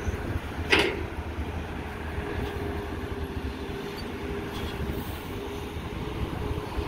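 Diesel engine of a Caterpillar tracked excavator running under load with a steady low rumble and a faint even hum. About a second in there is one sharp clank.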